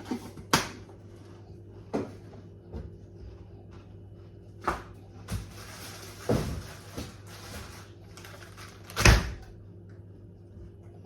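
A series of household knocks and clunks, like cupboard doors and objects being handled and set down, with a few seconds of noisy rustle in the middle. The heaviest thud comes near the end.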